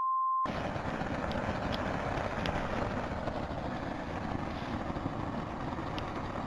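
A short censor bleep at the start, then the steady rushing of methane gas burning as it jets up through a hole chopped in frozen lake ice.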